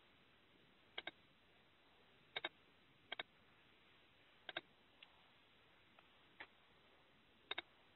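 Faint computer clicks heard over a telephone line, mostly in quick pairs and about a second or so apart, while someone looks something up; near silence between the clicks.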